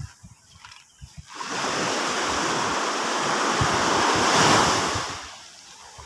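Small sea wave washing up the sand and drawing back: a hiss that swells about a second in, peaks, and fades away near the end. Low wind rumbles on the microphone run underneath.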